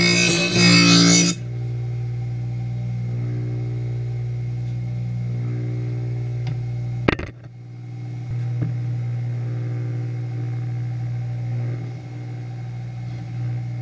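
Electric motor of a blade-sharpening grinder running steadily with a low hum, with no sound of a blade on the wheel. A sharp click comes about seven seconds in, and the hum dips for about a second before it steadies again. Background music plays for the first second or so.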